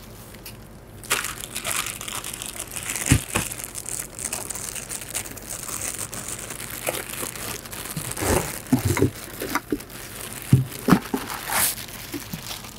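Plastic wrapping crinkling and rustling as it is pulled off the sections of a stand-up paddle board paddle, with a few knocks as the parts are handled.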